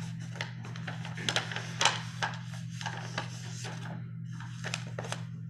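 Paper pages being leafed through and handled, a scatter of short rustles and taps, over a steady low electrical hum.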